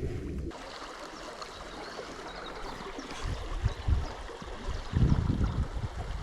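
Small river running steadily over stones, with a few low thumps or rumbles about three and five seconds in.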